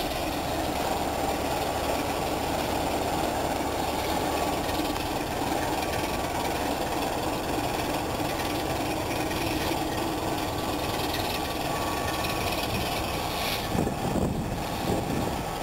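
Diesel engine of a BR Sulzer Type 2 (Class 24/25-type) locomotive running with a steady drone. A couple of short knocks come near the end.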